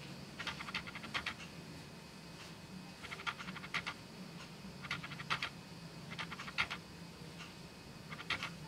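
Makeup-removing wipe rubbed over the skin of the face and eyelid: faint scratchy, clicky rubbing in short clusters of strokes, repeated about every second, over a steady low room hum.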